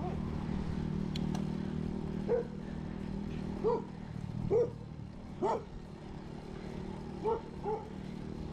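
A dog barking six times in short, separate barks over several seconds, over a steady low hum.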